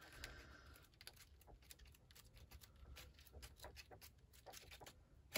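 Faint soft ticks and rustles of paper as the pages of a thick pad of journal cards are flipped through by hand.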